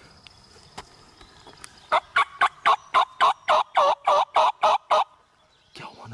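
A run of about a dozen loud, evenly spaced turkey yelps, about four a second.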